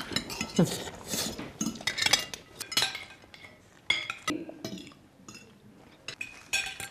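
Cutlery clinking against plates at a meal table: a run of short, irregular clinks, some with a brief ring.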